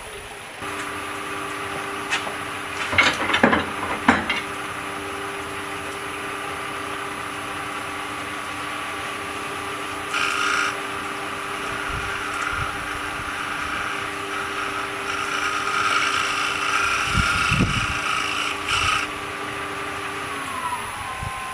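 Wood lathe running with a steady motor whine while a turning tool cuts a spinning black walnut blank in several bursts, the longest a few seconds long near the end. In the last second the lathe winds down, its whine falling in pitch.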